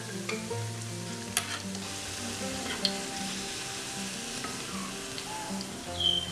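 Ripe plantain pieces sizzling as they fry in hot oil in a frying pan, with a few light clicks as a metal spoon lifts the fried pieces out.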